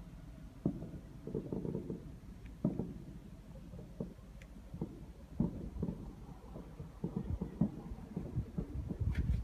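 Distant fireworks going off: a series of low, muffled booms at irregular intervals, coming thicker and louder near the end, over a low rumble.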